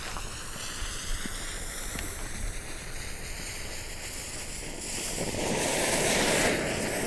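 Ground firework fountain (an 'Einhornpups' volcano) catching about five seconds in and starting to hiss, the hiss growing louder towards the end; before that only a faint steady outdoor noise while the fuse burns.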